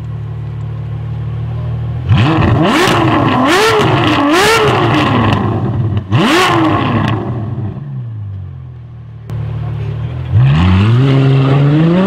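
Ferrari F12berlinetta's V12 with a Capristo exhaust, idling and then revved hard several times about two seconds in, with sharp cracks from the exhaust among the blips, and once more near six seconds. Near the end it pulls away, its note climbing steadily in pitch.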